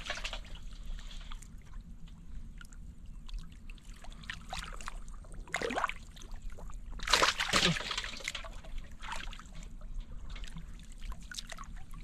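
Water sloshing and trickling, with small splashes throughout and two louder splashes about six and seven seconds in.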